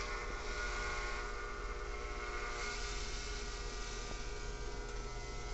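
Corded electric hair clippers running with a steady buzz while trimming a pug's fur.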